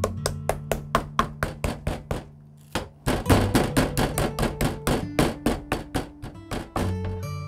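Metal meat tenderizer mallet pounding a raw beef steak on a wooden cutting board: quick, even strikes about five a second, with a short break a little past two seconds in, stopping near the end.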